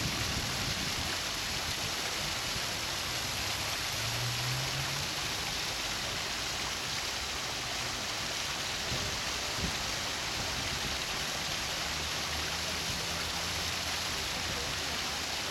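Small artificial waterfall splashing over rocks: a steady rushing of falling water.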